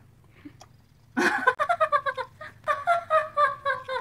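Quiet for about a second, then a woman bursts into high-pitched laughter, a rapid run of short 'ha' bursts falling in pitch, in two bouts.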